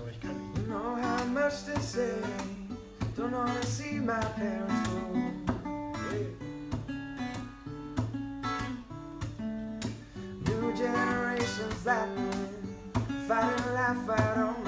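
Acoustic guitar playing strummed chords, with a melody line moving above them.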